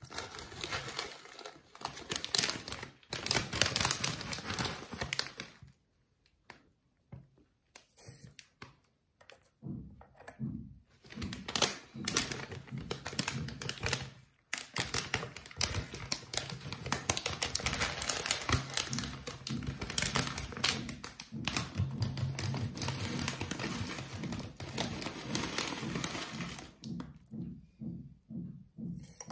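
Dry large-leaf green tea rustling and crackling as it is handled and dropped into a teapot's metal infuser, in stretches of dense fine ticks with short pauses between.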